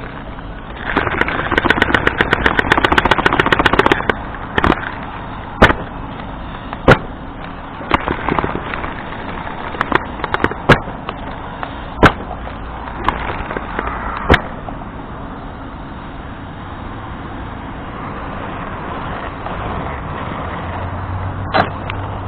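Arrma Kraton RC monster truck bashing over rocky ground. About a second in there is a burst of rapid rattling that lasts a few seconds, then a string of loud, sharp impacts a second or two apart as the truck lands hard and tumbles, with one more near the end.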